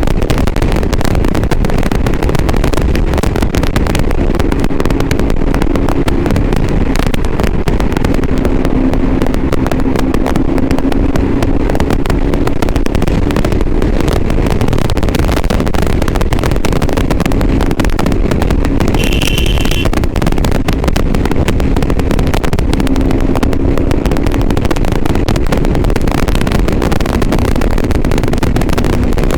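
Suzuki GSX-R motorcycle engine running, its note drifting up and down, buried under a constant loud crackle: the distorted, poor sound of a GoPro Hero 7 recording through an external microphone.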